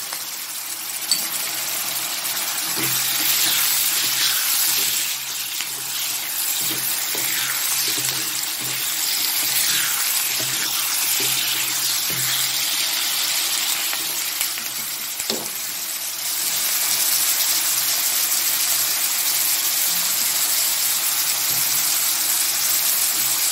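Pork belly and vegetables sizzling in a hot wok as they are stir-fried with a metal spatula, with a couple of sharp clicks of the spatula against the pan. The sizzle grows louder about two-thirds of the way through.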